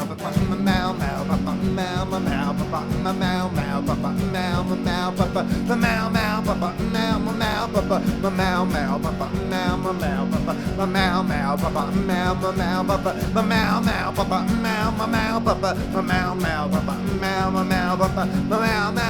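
Instrumental break of a surf-rock song: a guitar-led band part over a steady, fast beat, with no singing.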